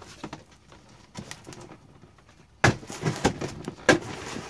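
Cardboard box being handled and opened on a workbench: quiet scraping and faint clicks, then a sudden loud knock a little over halfway through and a few more knocks after it.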